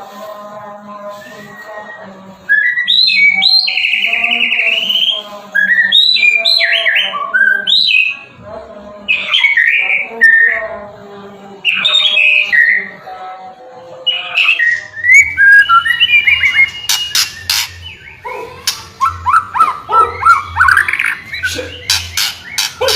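White-rumped shama (murai batu) singing a long run of loud, varied whistled phrases and trills. About halfway through, a low hum and several sharp clicks come in under the song.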